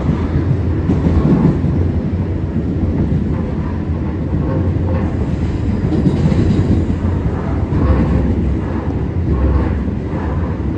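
An R211A subway car in motion, heard from inside the car: the running train makes a steady, low rumble on the track.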